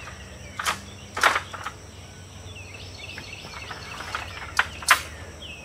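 A handful of sharp clicks and clacks from an RV awning's aluminium arm being released and adjusted by hand, over steady insect buzzing and a few short bird chirps.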